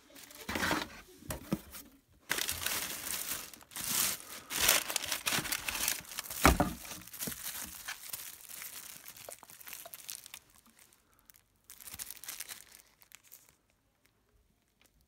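Cardboard box flaps, brown paper packing and plastic wrapping rustled and crinkled by hand as an item is dug out of a shipping box. A single thump comes about six and a half seconds in, and the rustling dies away near the end.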